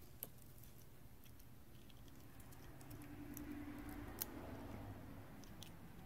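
Faint handling sounds: a few small clicks and taps as a digital caliper's jaws close on a cut piece of copper condenser tubing held in the fingers, over a faint low hum.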